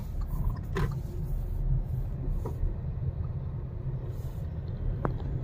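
A moving car heard from inside the cabin: a steady low rumble of engine and road, with a couple of faint short ticks.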